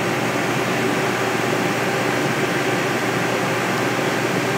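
A.O. Smith Legend 2000 commercial boiler firing: the combustion blower and gas burner running with a steady, even rushing noise.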